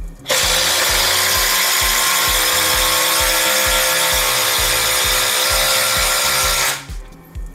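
Bosch GDX 18V-200 cordless impact wrench hammering a 10 cm screw into hard wood, running steadily without a break for about six and a half seconds, then stopping abruptly.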